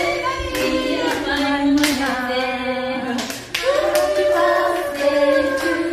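A group of women singing a tune together in long held notes, with scattered hand claps.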